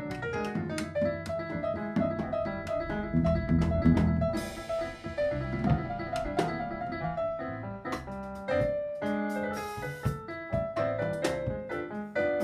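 A jazz group playing a chacarera, with the piano out in front over bass and drum kit; a cymbal crash rings out about four seconds in and another near ten seconds.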